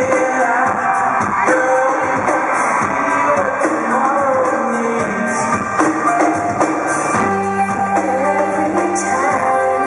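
A live pop-rock band and a male lead vocal, amplified through arena speakers and picked up from the audience.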